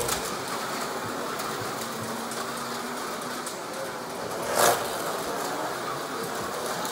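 Slot cars running on a Carrera Digital track: a steady small-motor whir, with one car whizzing close past about four and a half seconds in.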